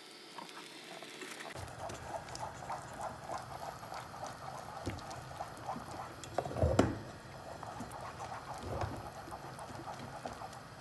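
A silicone whisk beating chocolate pudding mixture in a pot: rhythmic sloshing strokes, about three a second, starting about a second and a half in. One louder knock comes about two-thirds of the way through.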